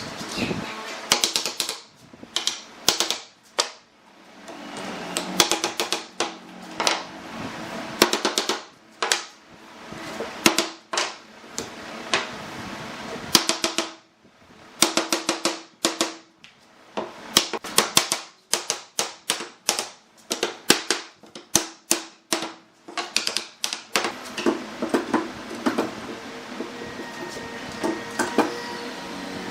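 Irregular sharp knocks and taps on wood in quick clusters with short pauses between them, like workshop tool work.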